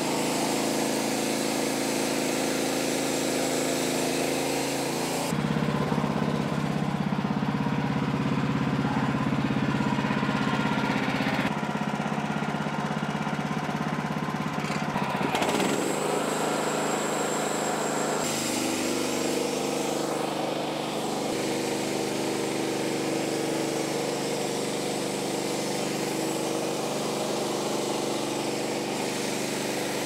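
Wood-Mizer LX55 band sawmill running: its gasoline engine runs steadily while the band blade cuts lengthwise through a log. The engine hum shifts abruptly in pitch a few times.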